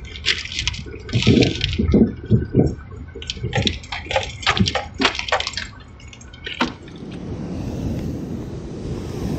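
Vehicle bumping along a rough dirt track, with irregular knocks and rattles. About seven seconds in, these give way to a steady rush of surf breaking on rocks.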